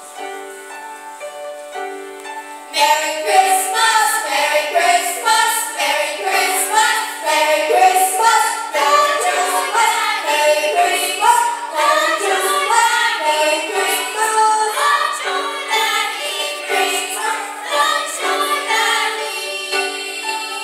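A children's choir singing in unison with piano accompaniment. The piano plays alone at first, and the voices come in about three seconds in.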